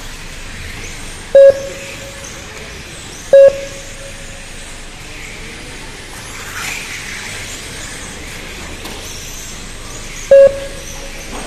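An RC race lap-timing system beeps three times, at uneven gaps, each beep marking a car crossing the timing line. Each beep is short, loud and electronic. Under them runs a steady background hiss.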